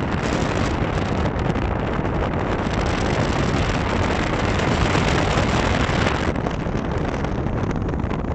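Wind buffeting the microphone: a steady rushing noise that eases a little about six seconds in.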